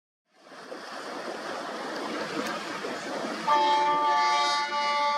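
A steady rushing noise, then about three and a half seconds in a loud horn blast sounding several tones at once, held to the end.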